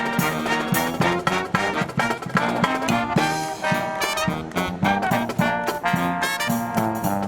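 Marching brass band playing a tune, with brass melody and chords over a steady beat of low bass notes and drum strokes.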